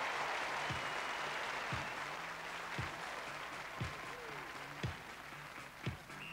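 Studio audience applauding, the clapping slowly dying down, with a low drum thump about once a second underneath.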